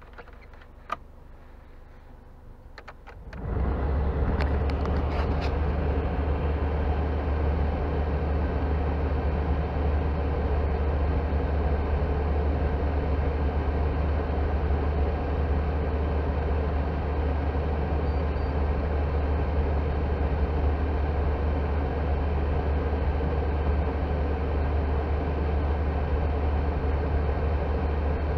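A few light clicks of the dashboard climate dials being turned, then about three seconds in the car's heater blower fan switches on and runs as a steady loud rush of air over a low hum. The heater is set to full hot so that the heater core draws heat out of an overheating engine, and the coolant temperature is falling.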